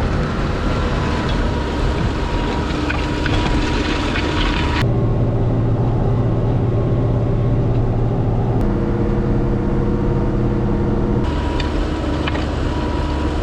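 Farm tractor engine running steadily, with a few faint clicks and rattles. The sound changes abruptly three times, about 5, 8.5 and 11 seconds in, where separate recordings are spliced together.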